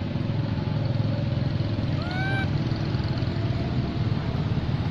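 Steady low rumble, with one short squealing call from a macaque about two seconds in, its pitch rising slightly.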